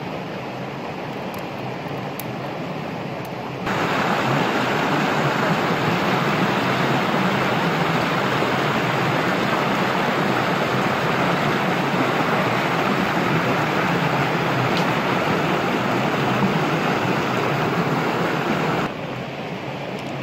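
Stream water rushing down a small rocky cascade: a steady rush that starts suddenly about four seconds in and cuts off near the end. Before and after it, a quieter steady stream sound.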